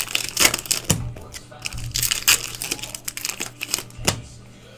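Foil trading-card pack wrappers crinkling and tearing while cards are handled, a quick run of sharp crackles and clicks.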